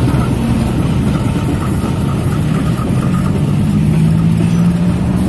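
Diesel locomotive hauling passenger coaches passes close by below, its engine running loudly as a continuous low rumble. A steady low hum in it grows stronger about three seconds in.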